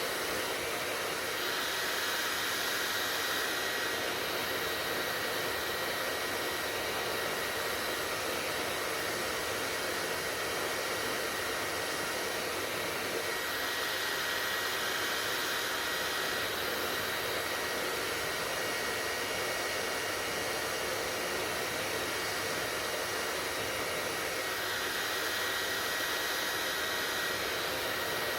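Hair dryer running steadily: an even rush of blown air with a faint steady whine, the airy hiss brightening slightly about every eleven seconds.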